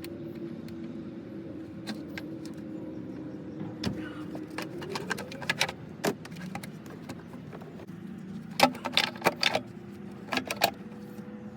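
Scattered sharp clicks and rattles of hands working plastic hose fittings and clamps off a truck's engine air box, with a dense run of clicking about nine seconds in and another shortly after. Underneath is a steady hum whose pitch rises about five seconds in.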